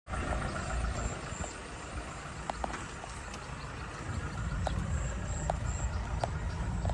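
Outdoor ambience: a steady low rumble with a few short, sharp ticks scattered through it and a faint high, intermittent chirr.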